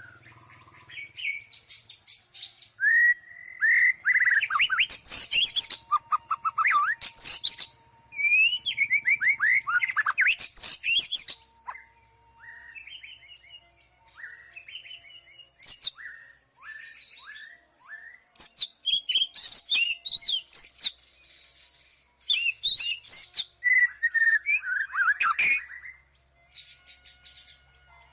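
White-rumped shama singing a loud, varied song: bursts of rapid whistles, trills and sweeping notes, separated by short pauses, including a run of short falling notes about halfway through.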